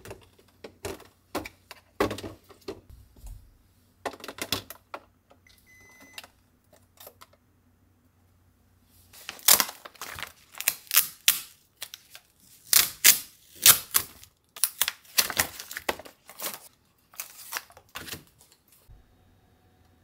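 Hard plastic containers and packaged food clicking and knocking as they are handled and set down, in scattered sharp clicks at first and then quick loud clusters of clatter through the second half.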